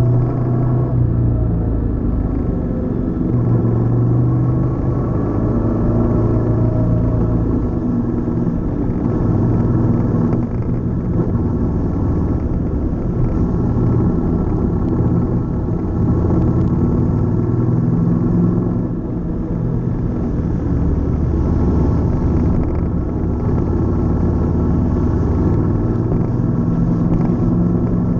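Honda CTX700 motorcycle's 670 cc parallel-twin engine running under way, its note rising and falling with the throttle, with a short dip about two-thirds of the way through.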